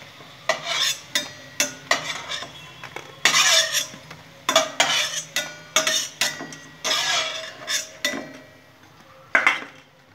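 A metal spoon scraping and clinking against a steel kadai as fried pakoras are scooped out of the hot oil, in irregular strokes, some ringing briefly. The clatter stops near the end.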